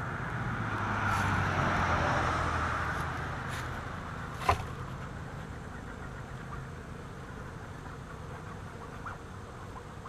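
Honeybees buzzing from an open hive, a steady low hum, with a rushing noise swelling over the first few seconds and one sharp knock about four and a half seconds in.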